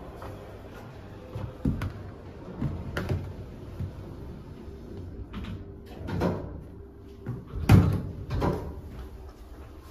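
Inside a KONE TMS 600 elevator car: a run of separate knocks and thuds, door-like, over a low steady hum. The loudest thud comes about three-quarters of the way through.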